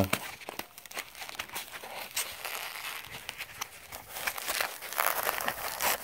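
Crinkling and rustling of packaging as a plastic-wrapped wireless doorbell push button is pulled out of its foam insert: irregular crackles that grow busier about four seconds in.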